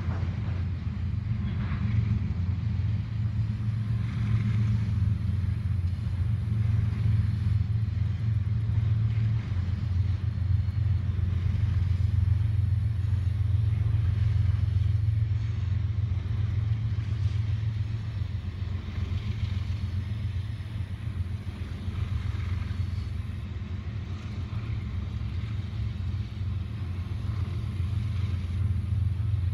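Double-stack intermodal freight train rolling past, a steady low rumble of wheels and cars on the rails.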